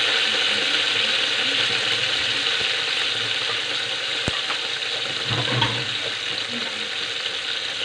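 Whole fish frying in hot oil in a pan, a steady sizzle, with a sharp click about four seconds in.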